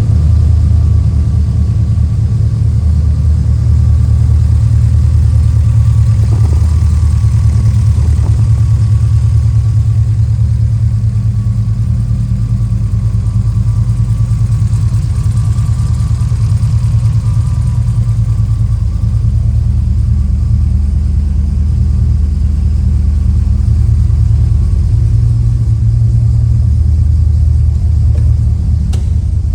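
Chevrolet engine idling through an aftermarket cat-back exhaust and headers: a loud, deep, steady exhaust note.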